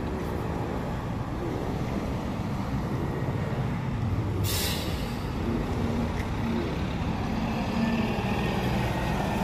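CNG city bus running with a steady low engine rumble, and one short hiss of air from its air brakes about four and a half seconds in.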